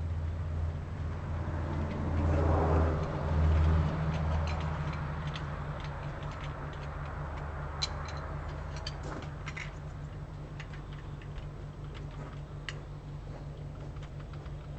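An engine idling steadily, swelling louder briefly about two to four seconds in, with scattered light clicks and taps around eight to ten seconds in.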